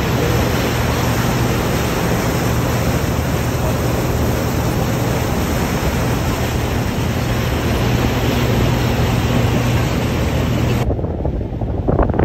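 Cruise boat under way: its engine hums steadily beneath a loud rush of churning wake water and wind on the microphone. About eleven seconds in, the sound cuts to quieter, gusty wind buffeting.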